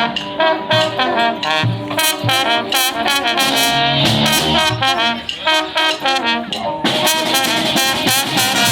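A brass band playing live, with trumpets and trombones over a low bass line in short, rhythmic phrases. About seven seconds in, the sound turns fuller and brighter.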